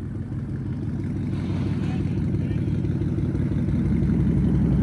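Catless, straight-piped 5.0 V8 exhaust rumbling, growing steadily louder.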